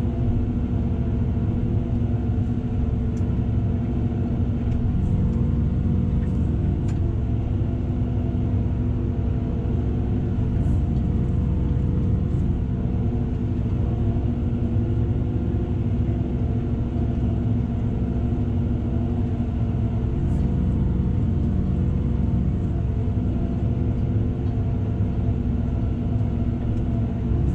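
Tractor diesel engine running steadily at constant revs, pulling a tillage implement.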